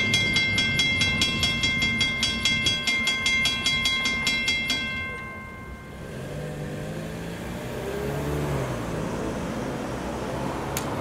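Level-crossing Western Cullen Hayes mechanical bell ringing fast and evenly, about four strokes a second, then stopping about five seconds in as the crossing deactivates after the train has cleared. Afterwards a car's engine rises in pitch as it pulls away and drives across the crossing near the end.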